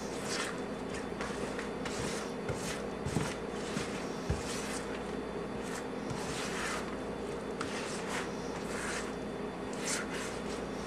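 Mixing spoon stirring a thick chocolate, peanut butter and oatmeal mixture in a plastic bowl: repeated soft scraping, squishing strokes, with a couple of light knocks of the spoon, over a steady low hum.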